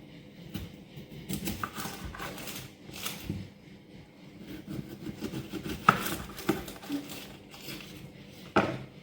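Kitchen handling noises: things picked up and set down on a counter, with scattered knocks, clicks and rustling. The sharpest knock comes about six seconds in, and another near the end.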